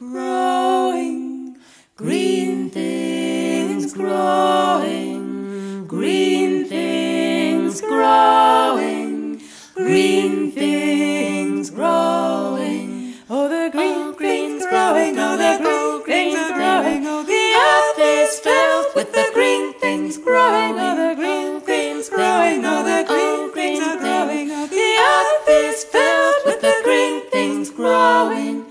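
Background song sung a cappella, voices in harmony: slow, long-held phrases for the first half, then quicker, busier notes from about halfway.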